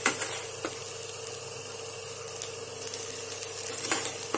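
Grated carrot sizzling in a steel kadai on the stove as cooked rice is added, a steady frying hiss with a few sharp clinks against the pan, the loudest about four seconds in.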